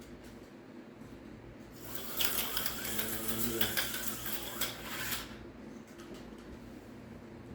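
HO-scale slot car running on plastic track: a small electric motor whine with rattling and clicking, starting about two seconds in and fading after about three seconds.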